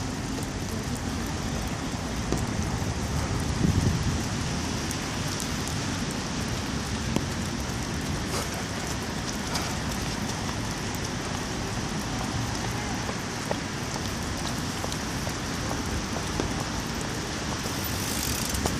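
Steady outdoor street background: an even hiss over a low rumble like traffic, with a few brief knocks, the loudest about four seconds in.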